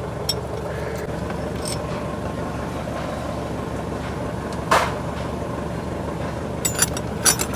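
Toyota Corolla GLi engine idling steadily. A single sharp metallic knock comes about five seconds in, and a few quick clicks come near the end.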